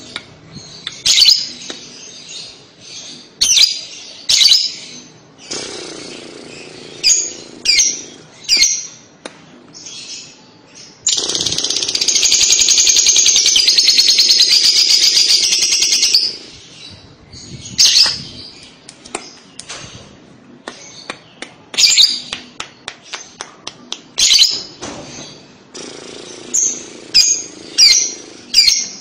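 Fischer's lovebird calling with short, sharp chirps. About eleven seconds in it breaks into a continuous rapid chattering trill lasting about five seconds, the loudest part: the long song that Indonesian keepers call "kekekan" (ngekek). The chirps then resume.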